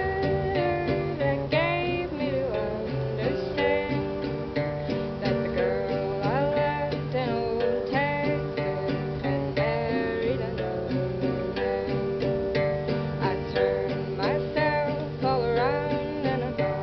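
Live acoustic guitar strummed, with a voice singing over it, sliding between notes.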